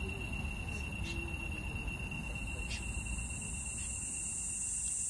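Night insects calling: a steady high-pitched trill that fades out after about three seconds, while a higher, hissing insect chorus swells up, over a low rumble.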